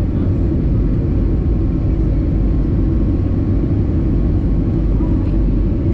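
Steady low roar inside the cabin of an Airbus A320 on approach: engine and airflow noise with no change in level.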